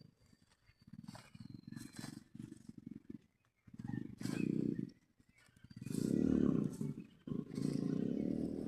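An animal's low, rough roaring calls in four bouts of about a second each, louder toward the end.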